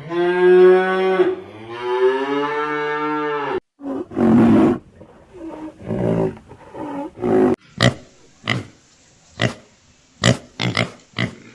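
Several different animal calls cut together one after another: first a long pitched call of about three and a half seconds that drops to a lower pitch partway through, then a few seconds of rougher, lower calls, then a string of sharp separate clicks or snaps.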